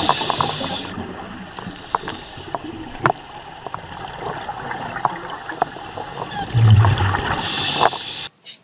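Underwater sound of a scuba diver: a steady hiss with scattered sharp clicks, and gurgling bursts of exhaled regulator bubbles at the start and again about seven seconds in.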